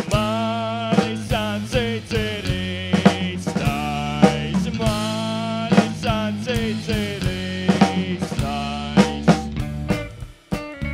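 Rock band playing, with drum kit and bass under long, wavering melodic notes. The music breaks off briefly near the end.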